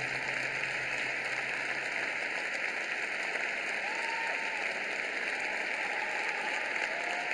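Arena audience applauding steadily, with a few faint calls from the crowd. The last held note of the programme music fades out in the first two seconds.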